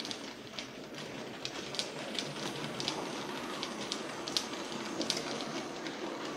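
00 gauge model train running, a Hornby Ruston diesel shunter hauling small four-wheel coaches and wagons: a steady running sound from the motor and wheels on the rails, with irregular clicks as the short-wheelbase wheels cross rail joints and pointwork.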